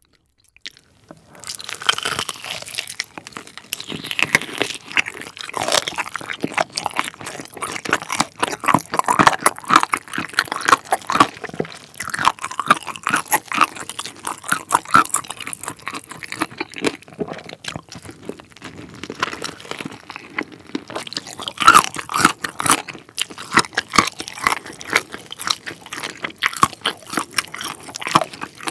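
Close-miked eating of a sauce-glazed Korean fried chicken drumstick (Cheogajip Supreme yangnyeom): crisp coating crunching under the teeth with wet chewing, starting about a second in and going on in quick irregular bites.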